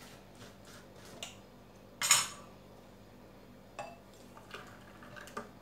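Light clicks and knocks of a small plastic mixer-grinder jar being opened, with one louder clatter about two seconds in as the lid is set down on a saucer. Near the end comes the faint sound of milk being poured into a glass.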